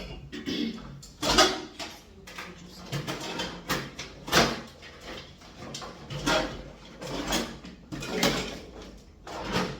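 Rustling and handling of bagged groceries as produce is unpacked, in a series of short crinkling bursts about once a second.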